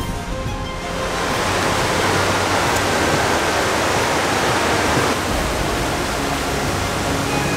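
Waterfall rushing: a steady, dense noise of falling water that swells up about a second in and then holds.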